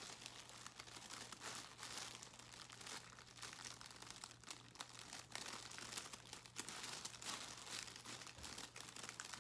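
Thin tissue paper crinkling softly with small scattered crackles as fingers pick and peel at the sticker seal holding the wrapping closed. A faint steady low hum lies underneath.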